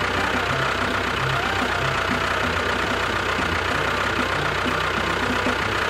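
An engine idling steadily, with an uneven low knocking beat underneath.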